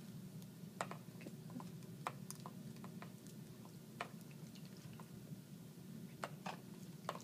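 Blood dripping into the plastic burette chamber of an IV blood-infusion set as it fills: faint, irregular drips and ticks over a steady low hum.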